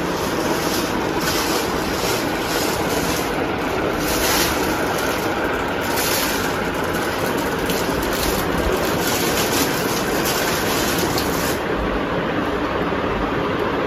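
Steady rushing noise, like air or wind on the microphone. Its high hiss drops away near the end.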